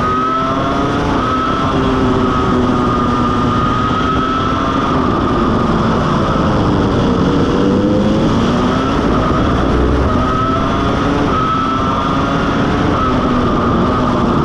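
Ferrari F2004 Formula 1 car's 3.0-litre V10 engine running at speed, heard from onboard. The engine note rises and falls repeatedly with the throttle.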